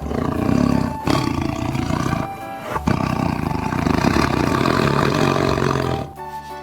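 Tiger roaring several times, the last roar the longest, over background music.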